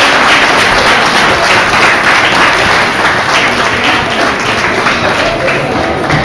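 Audience applauding, loud and steady, dying down a little toward the end.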